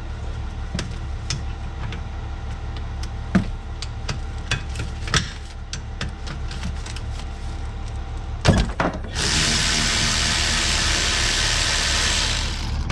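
Tools working a rear brake caliper bolt: scattered clicks and knocks, then sharp knocks about eight and a half seconds in. A power tool then runs loud and steady for about three and a half seconds, backing the stiff bolt out. A steady low hum sits underneath throughout.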